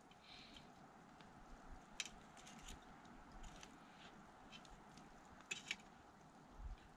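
Near silence: quiet outdoor ambience with a faint hiss and a few faint, sharp clicks, twice in quick succession near the middle.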